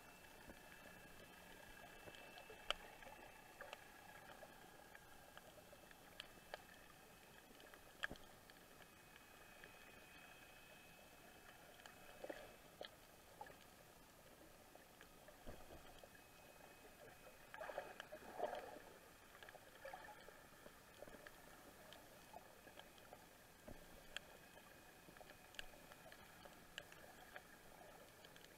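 Near silence underwater: a faint steady high whine with scattered sharp clicks, and a brief louder rustle about two-thirds of the way through.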